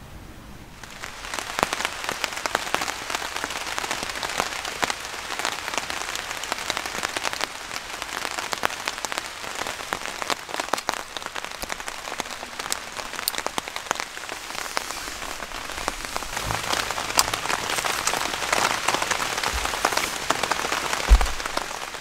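Steady rain, many individual drops pattering hard on a surface close to the microphone, setting in about a second in; a single low thump near the end.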